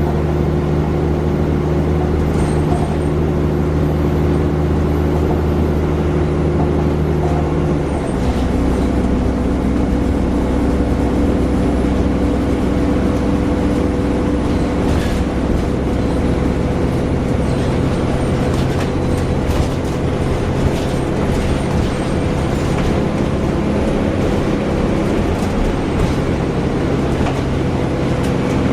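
Alexander Dennis Enviro 400 double-decker bus's diesel engine and drivetrain heard on board, running with a steady drone. The engine note changes abruptly about eight seconds in, then it runs on under load with light clicks and rattles.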